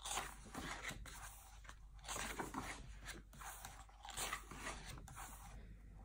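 Paper pages of an album photo book rustling and scraping as they are handled and turned by hand.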